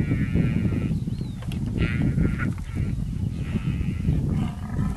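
Newborn Cape buffalo calf bellowing in distress, about four wavering high calls in a row, while spotted hyenas bite at it. A steady low rumble runs underneath.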